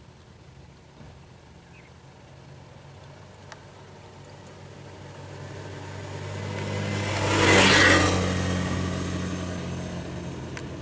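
Motorcycle engine approaching and passing close by. It grows louder from about halfway through, is loudest about eight seconds in, then drops back to a steady running hum.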